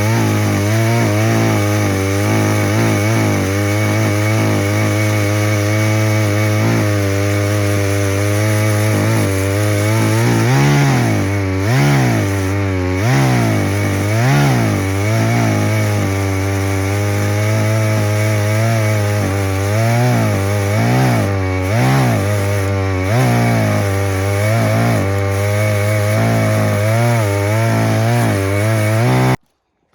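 Chainsaw mill ripping a log lengthwise under steady load, its engine pitch wavering up and down midway as the cut works through the wood. The saw cuts off suddenly near the end as the cut is finished.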